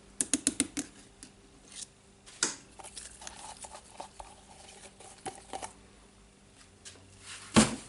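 Small handling noises on a workbench, most likely from opening and using a new grease container: a quick run of sharp clicks, then scattered light clicks and taps, and one louder knock near the end.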